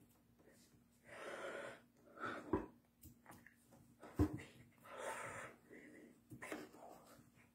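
A man's breathy, wheezy mouth and breath noises while he signs, with longer puffs about a second in and again near five seconds. Two sharp knocks come in between.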